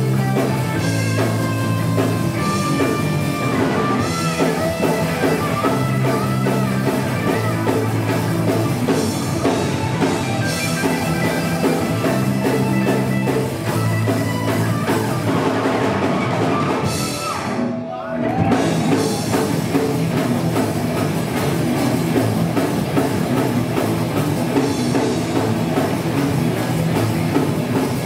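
Live rock band playing: electric guitars, bass guitar and drum kit. The band breaks off briefly about two-thirds of the way through, then comes back in full.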